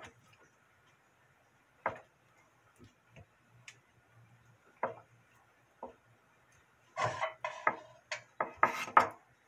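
Kitchen knife cutting through a block of ham and knocking on a wooden cutting board: single sharp knocks a second or more apart, then a quicker run of knocks and scraping near the end.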